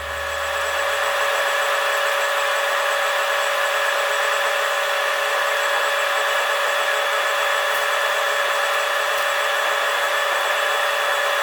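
A small electric power tool running steadily at constant speed, a high, even whir with a hiss over it.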